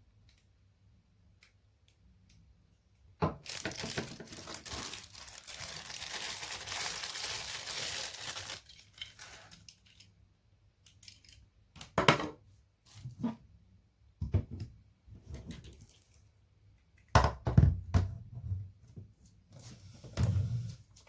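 Packaging being torn and crinkled for about five seconds, starting a few seconds in, followed by a run of sharp knocks and thuds as pieces are handled.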